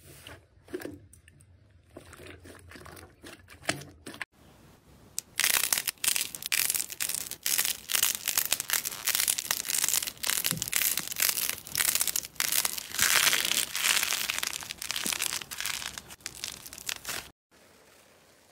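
Slime being pressed and squeezed by hand. At first there are soft, sparse sticky clicks. About five seconds in, a glossy pink slime is squeezed and it gives a dense, loud run of crackling and popping that cuts off suddenly near the end.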